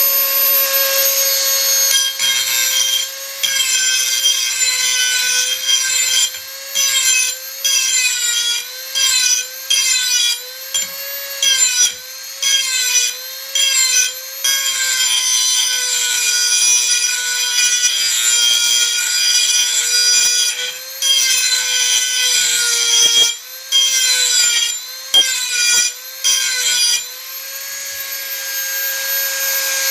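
Dremel 4000 rotary tool running at high speed with a steady high whine, grinding a metal tool edge in repeated passes: the pitch sags each time the wheel is pressed on and recovers between passes, with a rasping grind during contact. Near the end it runs free with no grinding.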